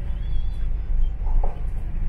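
Low, steady rumble of a London bus's engine and running gear, heard from inside the moving bus, with a brief faint high squeal about a quarter second in.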